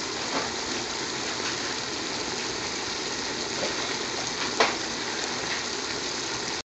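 Scotch bonnet peppers simmering in oil and vinegar in a cooking pot: a steady sizzling hiss with a few small pops, one sharper pop about four and a half seconds in. The sound cuts off suddenly just before the end.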